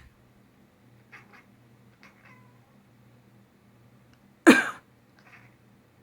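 A domestic cat gives short, soft chirps, a pair about a second in and more around two seconds in, in answer to a person's coughing. A person coughs once, loudly, about four and a half seconds in, and the cat chirps back within a second.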